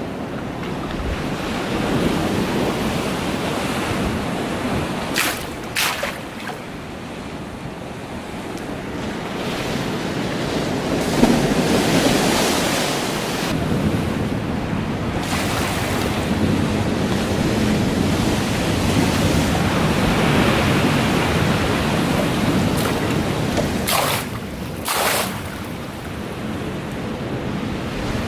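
Wind buffeting the microphone over water sloshing and lapping in a swimming pool stirred into waves, the noise swelling and easing. A few brief sharp sounds come about five seconds in and again near the end.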